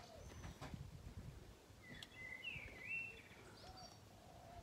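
Quiet outdoor ambience with a few faint bird chirps, the clearest a short chirping phrase about two to three seconds in.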